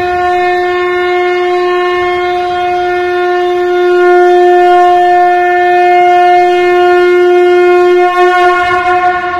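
A conch shell (shankh) blown in one long, steady note, wavering slightly about eight seconds in.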